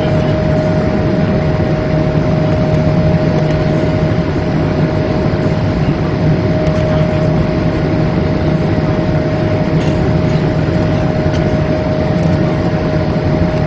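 Steady jet-airliner cabin noise inside an Airbus A220-300, its Pratt & Whitney PW1500G geared turbofans running evenly under a constant rush of air, with a steady hum tone and a low drone throughout.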